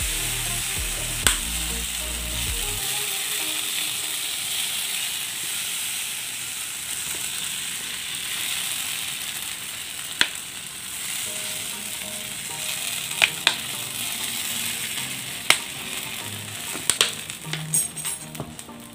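Roti jala batter sizzling on a hot pan as it is drizzled on in loops from a squeeze bottle: a steady hiss with a few sharp clicks, easing off near the end.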